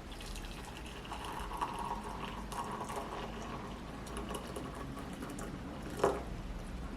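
Water running, with one sharp knock about six seconds in.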